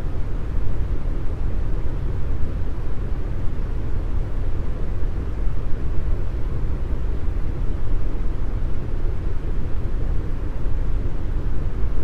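Deep brown noise: a steady, unchanging hiss with most of its weight in the low bass, thinning out toward the highs.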